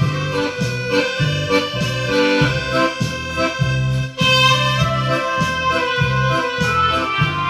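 Accordion music: a tune played over a steady, pulsing bass and chord accompaniment, with a brief break and change in the music just after four seconds in.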